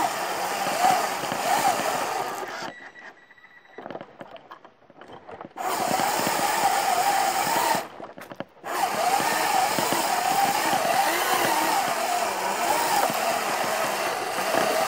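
Lego Technic and Mindstorms electric motors whining through their plastic gearing as the off-road car drives, the pitch wavering up and down with load. The sound drops away for a couple of seconds about three seconds in and again briefly near eight seconds.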